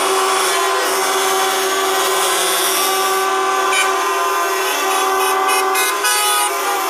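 Many truck horns sounding together: a dense chord of overlapping steady tones held without a break.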